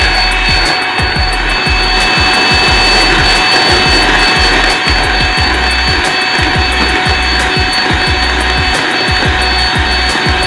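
Electric hand mixer running steadily with a high whine, its beaters rattling and knocking against a plastic bowl as they whip egg whites and sugar into a foam.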